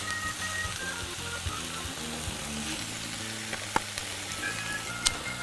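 Fresh Swiss chard and garlic sizzling steadily in olive oil in a frying pan, with a couple of sharp clicks late on.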